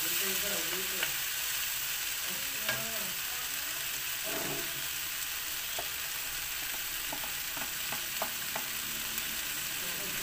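Bean sprouts and mixed vegetables sizzling in a wok as they are stir-fried with a wooden spatula, a steady hiss with a few light clicks of the spatula against the pan in the second half.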